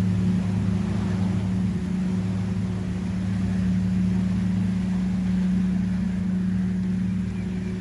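Boat engine running at a steady, even pitch, over the rush of churning wake water.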